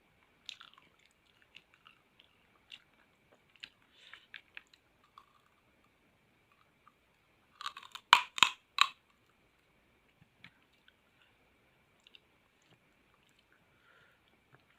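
A person chewing crunchy raw rujak fruit, with soft wet mouth clicks, then about four loud crunching bites close together about eight seconds in.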